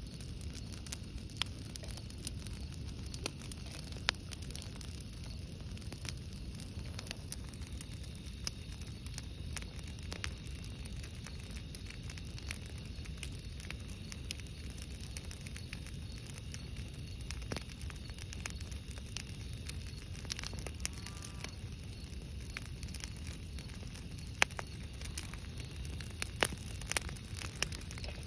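Bonfire of logs and dry brush branches burning, crackling with frequent sharp pops over a steady low rumble, with a few louder pops about four seconds in and near the end.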